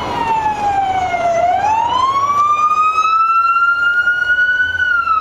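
Police siren wailing slowly: the pitch falls for about a second and a half, climbs back up and holds high, then starts to fall again near the end.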